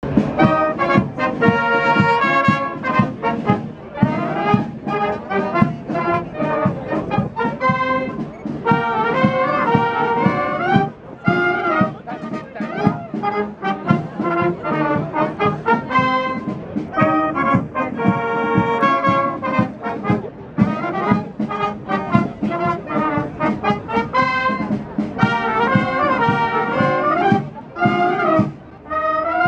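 Austrian brass band playing, trumpets, flugelhorns and tubas over a steady beat, with a short dip near the end.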